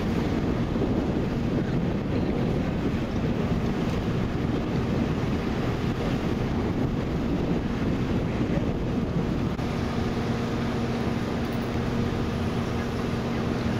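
Steady low rumble and hum of an engine running at idle, mixed with wind noise on the microphone.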